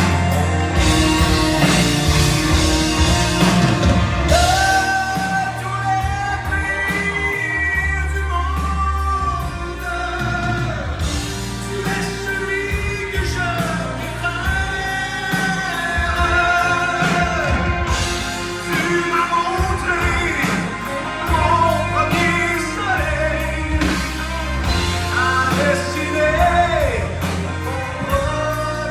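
Live performance by a Québec progressive rock band: bass and drums hold long, steady notes while a melodic lead line that wavers in pitch carries the tune.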